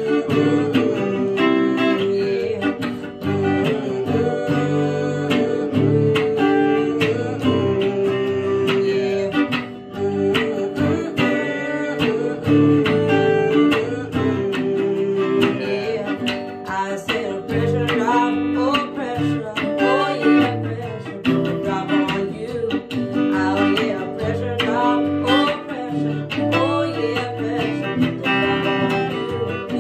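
A Squier electric guitar and an acoustic guitar playing a song together, strummed and picked, with singing.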